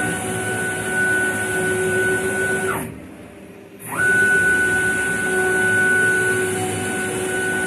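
Stepper motors of a DIY CNC router driving the lengthened Y axis on its 20 mm-pitch screws in two rapid moves. Each time the whine glides up as the motors accelerate, holds one steady pitch with a hiss above it, and glides down as they slow to a stop. The first move stops about three seconds in and the second starts about a second later.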